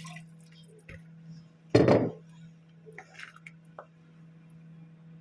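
Cookware clinking and clanking as a pot of stew is tended, with one loud, short metal clank about two seconds in, over a steady low hum.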